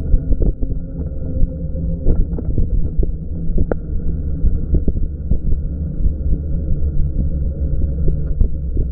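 Steady low, muffled rumble with many small knocks and jolts, and a sharper click a little before the middle: wind and ride bumps on an action camera mounted on a Super 73 e-bike.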